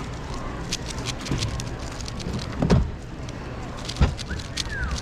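A plastic speedcube being turned fast during a solve: a rapid run of small clicks, with a heavier knock about two and a half seconds in and another about a second later, over a steady hall hum.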